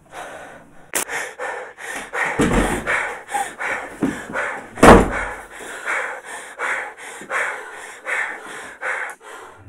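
Rapid, heavy panting of a frightened person, about three breaths a second, broken by a few knocks and thumps; the loudest thump comes about five seconds in.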